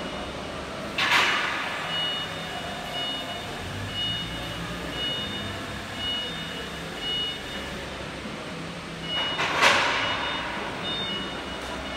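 Lift warning beeper on a frame-straightening bench sounding a steady high beep a little more than once a second, over a low machine hum. Two sharp rushes of air hiss break in, about a second in and again near the end.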